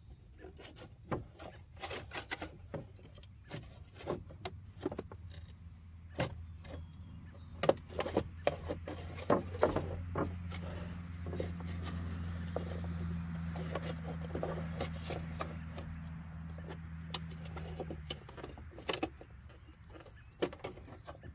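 Scattered clicks, knocks and scrapes of a pry tool and fingers working the mirror glass loose from a plastic truck side-mirror housing. A low steady engine hum joins in the middle and stops suddenly near the end.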